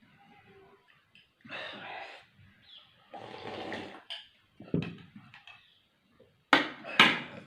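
A person breathing hard and sniffing through the nose while eating very spicy pani puri, in several breathy gusts, with two short sharp clicks near the end.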